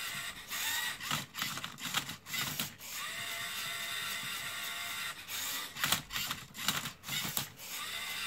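LEGO Mindstorms EV3 servo motors of a MindCub3r Rubik's-cube-solving robot whirring steadily, broken twice by a couple of seconds of rapid clicking and rattling of plastic gears and parts as the mechanism moves the cube.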